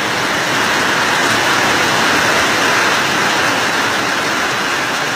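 Loud, steady rush of muddy floodwater pouring down a road as a torrent in heavy rain.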